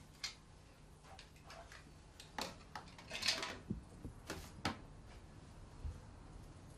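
A few light clicks and knocks of small objects being picked up and set down, with a brief rustle about three seconds in.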